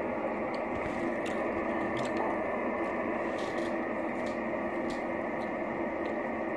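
Shortwave transceiver tuned to the 11-metre band giving a steady hiss of band noise through its speaker between calls, an open channel with no station transmitting. A few faint clicks sound over it.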